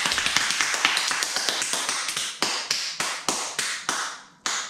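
A few people clapping their hands, quick and overlapping at first, then thinning to separate claps, with the last one about four and a half seconds in.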